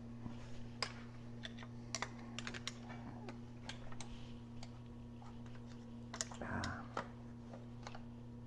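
Light, irregular metallic clicks and taps of hand tools working at a snap ring inside a tractor transmission case, with a louder scrape about six and a half seconds in. A steady low hum runs underneath.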